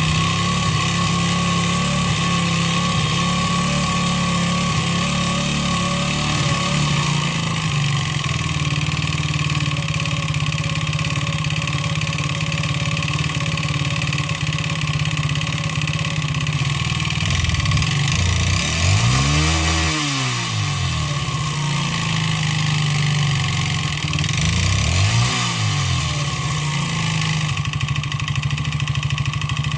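139QMB 50cc single-cylinder four-stroke scooter engine running with a deliberately slack piston (skirt ground short, cylinder honed oversize), knocking with piston slap at a steady idle. It is revved up and back down twice, about two-thirds of the way in and again a few seconds later.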